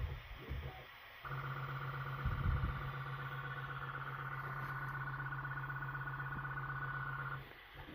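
Bambu Lab P1P 3D printer running with a steady electric hum and buzz, starting about a second in and cutting off abruptly near the end, with a brief low bump about two seconds in.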